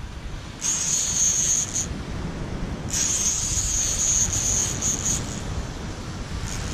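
Heavy surf-fishing reel buzzing in three spells of one to two seconds each, as a hooked shark is pumped and reeled toward the beach. Wind and surf rumble underneath.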